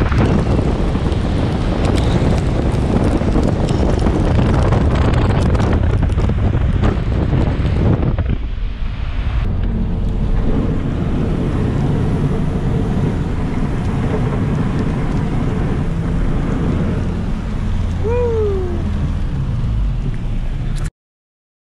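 Heavy wind buffeting the microphone in a storm: a dense, steady rumble and rush that dips briefly about eight seconds in. Near the end there is one short call that falls in pitch.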